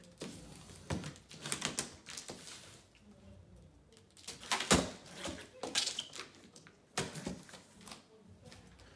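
Large cardboard shipping box and its packing being opened and handled: irregular scrapes, rustles and knocks, with the loudest knock about halfway through.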